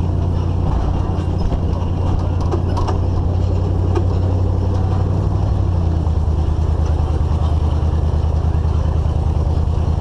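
GMC Suburban's engine running steadily while towing a loaded flatbed trailer, a low hum picked up through a camera suction-cupped to the rear window, with road noise and a few light rattles. The engine note drops a little about six seconds in.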